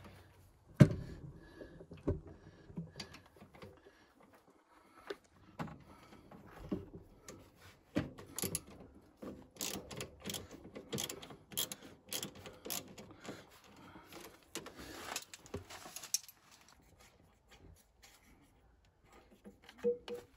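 Hand tools on the tractor's metal: scattered clicks, clinks and rattles as the engine-bay side panel's bolts are worked loose, with a sharp knock about a second in.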